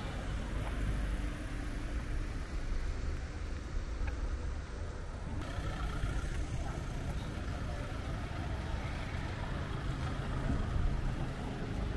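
Car engines running at low speed, with a steady rumble of slow traffic in a car park.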